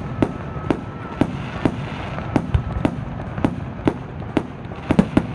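Fireworks going off in quick succession: a string of sharp bangs, about two or three a second, over a steady crackle, packing closer together near the end.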